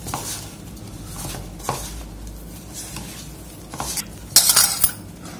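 Hands mixing and kneading flour dough in a stainless steel bowl: soft rubbing and squishing of the dough. A little after four seconds in comes a quick run of louder clinks and knocks against the steel bowl.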